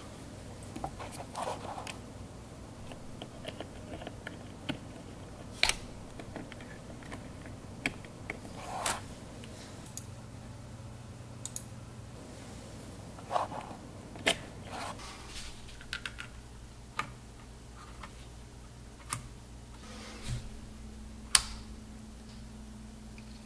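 Scattered small clicks and knocks from hands handling gear at a desk and workbench, over a low steady hum. The sharpest click comes near the end, as a power cord is pushed into the 3D printer's socket.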